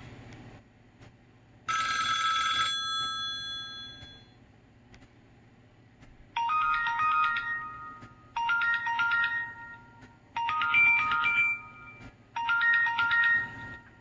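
Built-in ringtones of a Samsung Blackjack 2 (SGH-i617) smartphone playing through its small speaker as they are previewed. About two seconds in comes a short chord that rings and fades. From about six seconds in, a different ringtone plays: a short electronic melody of clear beeping notes, repeated four times, once every two seconds.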